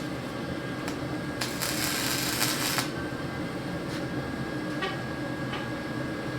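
Welder striking a tack weld: a crackling arc burst lasting a little over a second, starting about a second and a half in, with a few short clicks around it.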